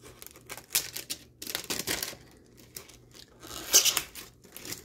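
Packing tape tearing and a cardboard shipping box being pried open by hand, in several short rustling, tearing bursts; the loudest comes about a second before the end.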